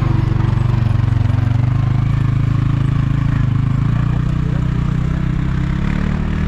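Vehicle engine running steadily at low revs close by, its note rising a little about four to five seconds in.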